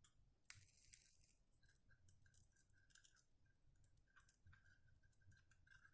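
Faint sizzle of solder paste (flux) under a hot soldering iron tip: a short hiss about half a second in, then scattered tiny crackles and pops as the flux boils off.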